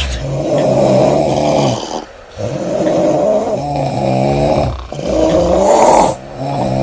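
Women snoring loudly with open mouths: a run of rough, pitched snores, each one to two seconds long, with brief pauses between breaths.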